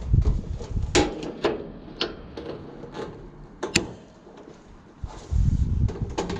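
Scrap wire and small metal parts being handled: several sharp clicks and knocks at irregular spacing, then a low rumbling rustle near the end.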